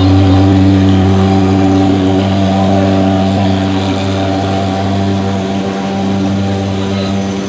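Handheld thermal fogging machine's pulse-jet engine running with a loud, steady drone.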